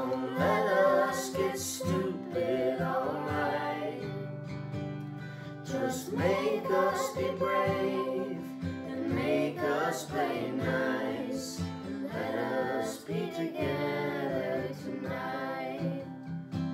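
Acoustic guitar strummed while a man, a woman and two children sing together, with a short gap in the voices about four seconds in.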